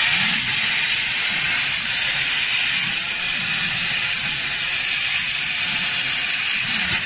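Plasma torch of a HITEC HTP-1530R CNC tube cutter cutting a metal pipe: the arc gives a loud, steady, high-pitched hiss.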